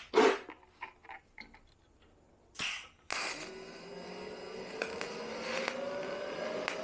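Clicks and knocks of metal parts being handled and set in place. About three seconds in, a steady machine noise starts abruptly, with a whine that slowly rises in pitch.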